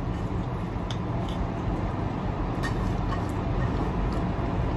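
A few faint, short clicks of metal spoons against ceramic plates while mango sticky rice is eaten, over a steady low room hum.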